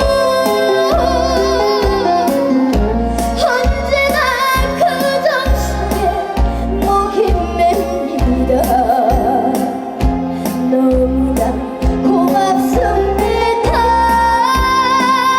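Female trot singer singing live over a recorded backing track: a steady, regular beat with a held, wavering vibrato voice.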